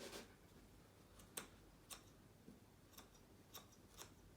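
Faint, separate snips of carpet shears, about six spread unevenly, trimming the tops off stained carpet pile.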